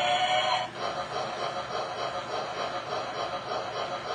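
A model train's whistle gives a last steady blast that cuts off under a second in, then the train runs on along the track with a steady rolling rumble that pulses evenly.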